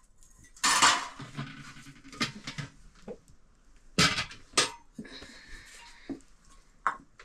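Dishes and metal utensils clattering as rice is dished out: a scraping rattle about a second in, then scattered sharp clinks and knocks.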